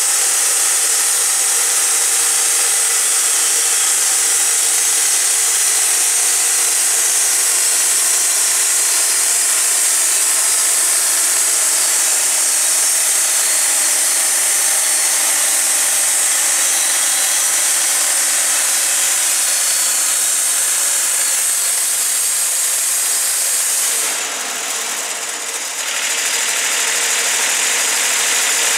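Wood-Mizer LT40 band sawmill running, its bandsaw blade cutting along a cottonwood log with a steady engine note and a high hiss. About 24 seconds in the sound dips and the engine pitch shifts as the blade clears the end of the log and the cut finishes.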